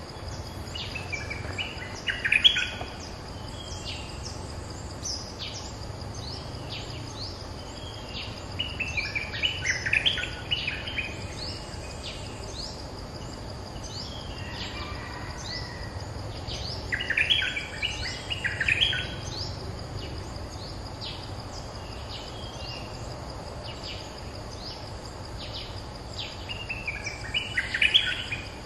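Stripe-throated bulbuls singing back and forth, a caged decoy and a wild territorial bird answering it. Four loud bursts of quick, bubbly song phrases come about every eight seconds.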